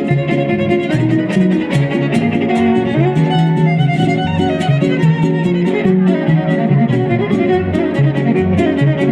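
Son huasteco trio playing an instrumental interlude: a violin carries the melody over rhythmically strummed strings, with sharp regular strokes keeping the huapango beat.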